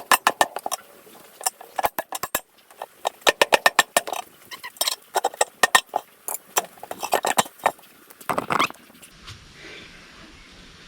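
Rapid bursts of sharp metal strikes, several a second, from a sledgehammer on a tractor tyre's rim and bead to break the bead loose. The striking stops about eight seconds in, leaving a faint steady hiss.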